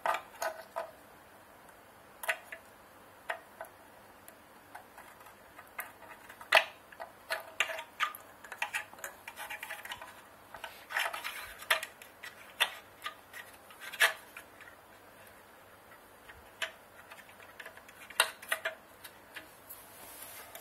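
Irregular light clicks and taps of a small metal tool and plastic parts being handled at the rice grinder motor's wiring connectors, with a few sharper clicks about six and fourteen seconds in.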